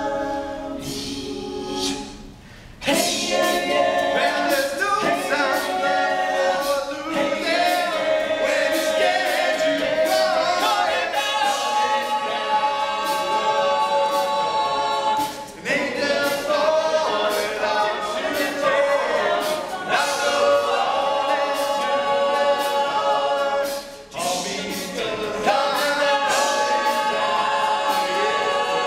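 All-male a cappella group singing in close harmony, without instruments. The voices break off briefly between phrases three times, about two and a half, fifteen and a half and twenty-four seconds in.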